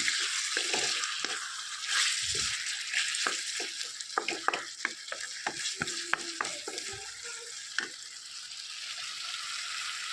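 Food sizzling in hot oil in a pan while a utensil stirs it, with a steady hiss and repeated clicks and scrapes of the spoon against the pan, busiest in the middle.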